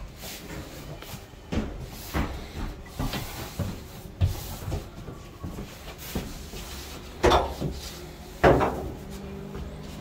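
Irregular knocks and clunks, with two louder ones about seven and eight and a half seconds in.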